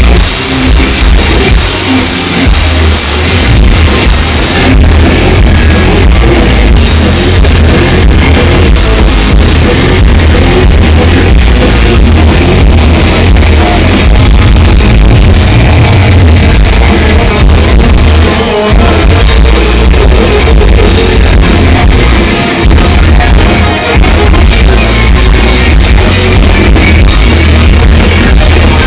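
Thrash metal band playing live, recorded loud and distorted from the crowd: heavily distorted electric guitars, bass and fast double-kick drumming, with shouted vocals at times.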